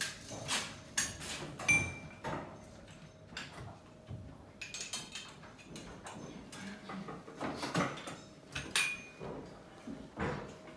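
Irregular metallic knocks and clinks of hand tools and copper pipe being handled, a few with a brief high ringing note.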